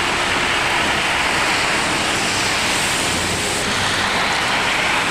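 A steady, loud rushing noise of water, such as torrential rain or floodwater.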